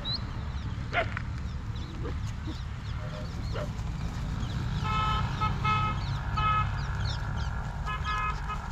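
A vehicle horn honking in a string of short, steady-pitched blasts midway through and again near the end, over a steady low rumble. A short sharp sound about a second in is the loudest moment.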